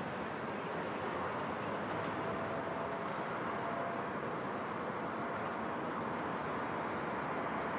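Distant city traffic: a steady, even hum of road noise over a city at night.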